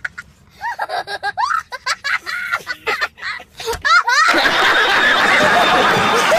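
Women shrieking and laughing, startled by a fake snake. At first there are separate squeals and laughs; about four seconds in they swell into a loud jumble of many voices screaming and laughing at once.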